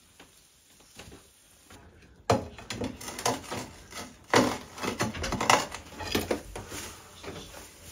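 A steel pry bar working through loose brick rubble. After a faint start, a run of irregular clattering knocks and scrapes begins about two seconds in as broken bricks and mortar chunks are levered and tumble against each other.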